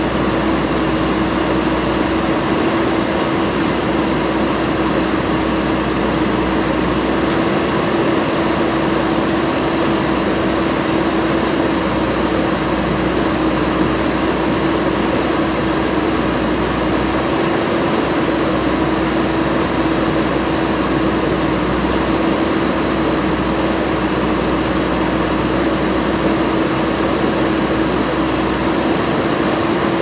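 JCB 3DX backhoe loader's diesel engine running steadily while the backhoe arm digs, with a constant steady tone over the engine noise.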